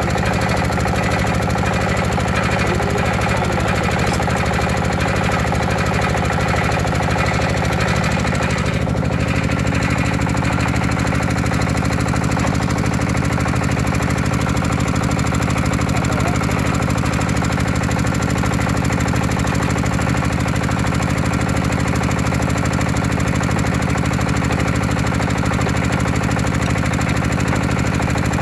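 A small engine running steadily at an even speed, with a rapid, fast-pulsing note, alongside HDPE pipe heat-fusion welding work.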